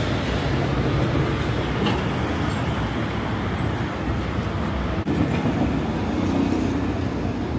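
Midtown Manhattan street traffic: a steady, dense rumble of passing vehicles.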